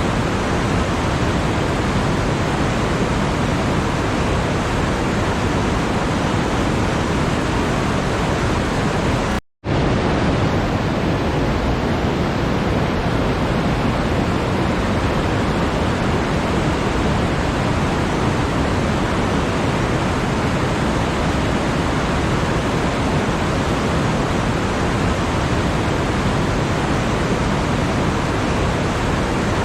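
Steady, even rushing noise like pink noise, unchanging throughout, with one brief cut to silence about nine and a half seconds in.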